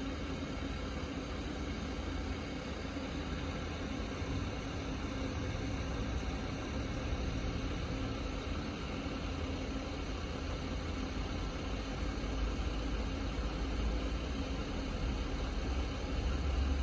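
Low, steady rumble of a Class 66 diesel freight locomotive's two-stroke V12 engine as it approaches, growing slowly louder towards the end.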